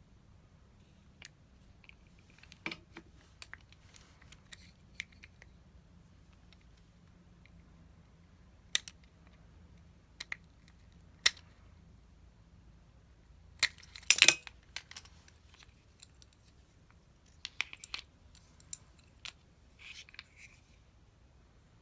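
Scattered sharp clicks and light taps of small hand tools and lever parts being handled during bench work on a Shimano ST-6870 Di2 STI lever, with a quick cluster of louder clicks about two-thirds of the way in.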